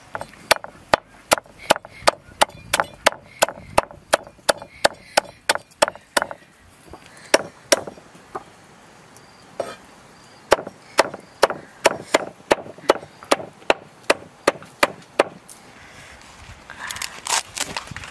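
A cleaver chopping on a wooden chopping board in quick, even strokes of about three a second, in two long runs with a short pause between. A brief rustling scrape comes near the end.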